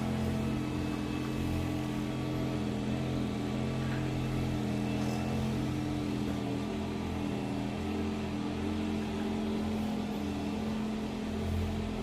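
Handheld electric percussion massager (a Vibracussor) running against the muscles of the back: a steady motor hum, with a lower buzz that swells and fades a few times as it is pressed and moved.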